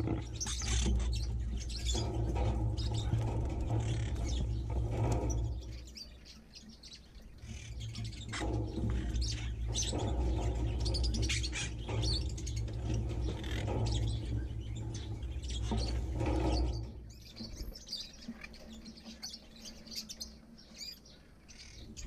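A flock of small aviary birds, budgerigars among them, chirping and chattering. A low rumble runs under the calls and drops away twice, about six seconds in and again near the end.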